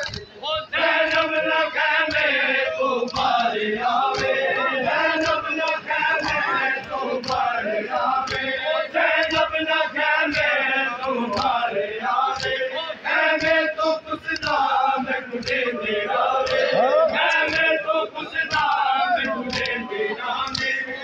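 A crowd of men chanting a Shia Muharram lament (noha) together, with regular sharp beats through the chant, typical of rhythmic chest-beating (matam).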